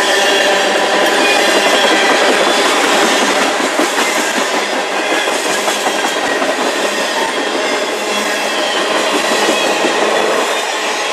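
Freight cars of a CN manifest train rolling past close by: tank cars and covered hoppers clattering over the rail joints, with a steady metallic ringing from the wheels on the rail.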